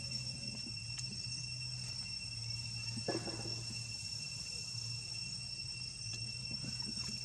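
Steady, high-pitched insect drone made of two unwavering tones, with a low hum underneath and a brief soft sound about three seconds in.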